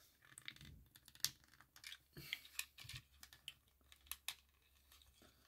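Faint, irregular plastic clicks and taps from fingers handling a Legacy Armada Hot Shot Transformers toy and working its small parts.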